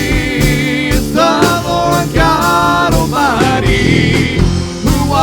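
Live contemporary worship band playing, with regular drum hits and a bass line under a lead voice singing drawn-out notes.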